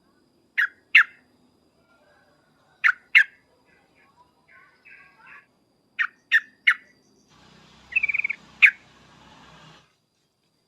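Yellow-vented bulbul (trucuk) calling: short, sharp, loud notes, first in two pairs, then three in quick succession, with softer notes between. Near the end comes a quick bubbling warble and one more sharp note over a patch of hiss.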